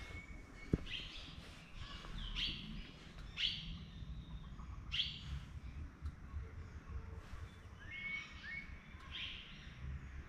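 Spotted deer (chital) giving a strong alarm call: short, sharp, high-pitched calls repeated about six times at intervals of a second or more, the call a deer gives when it senses a predator. A sharp click about a second in.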